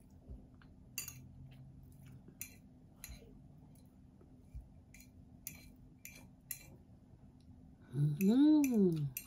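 A fork clinking lightly against a plate at irregular intervals. About eight seconds in comes a loud, drawn-out vocal hum, about a second long, that rises and then falls in pitch.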